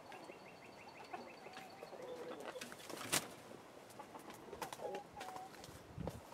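Chickens in a coop giving faint, low clucks, with a fast, high ticking trill over the first few seconds and one sharp click about three seconds in.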